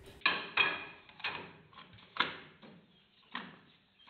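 Metal clunks and clinks as a new rear axle shaft with its bearing is slid into the axle housing through the drum-brake backing plate. There are about five knocks with a short metallic ring, the loudest in the first couple of seconds and fainter toward the end.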